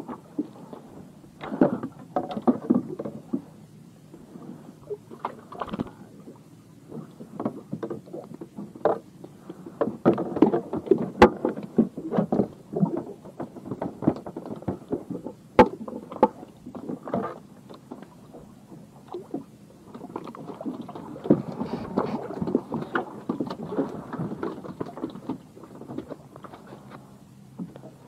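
Water lapping and slapping against the hull of a small wooden fishing boat, with irregular knocks and clatter from fishing gear being handled on deck and a couple of sharp clicks in the middle.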